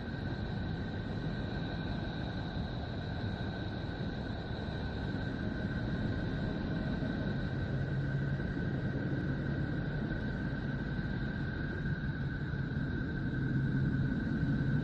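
Space sonification drone of the kind sold as a planet's 'sound': a steady deep rumbling hiss with two thin high tones held unchanged over it, and a low hum joining about halfway through as it slowly grows a little louder.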